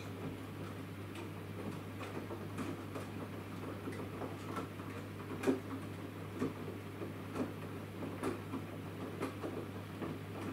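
Samsung WW10N645RBW front-loading washing machine in its wash phase, the drum turning the wet laundry. A steady low hum runs throughout, with light knocks that settle into about one a second in the second half.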